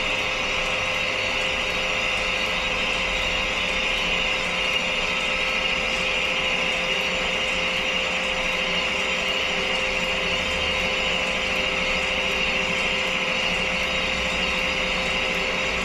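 Crankshaft balancing machine spinning a Rover K-Series 1.6 crankshaft at steady speed, above the 800 RPM it needs to measure the crank's imbalance. An even mechanical whirring with a constant hum, unchanging throughout.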